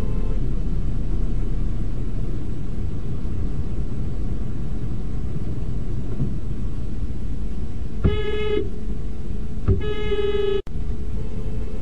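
Steady low rumble of idling traffic, then two car-horn honks about eight seconds in: a short half-second beep followed by a longer one of about a second that cuts off abruptly.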